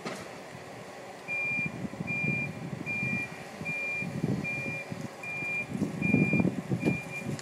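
Toyota forklift's reversing alarm beeping, one high tone repeating about one and a half times a second, starting about a second in as the truck sets off backwards. Under it come irregular bursts of low rushing noise, loudest near the end.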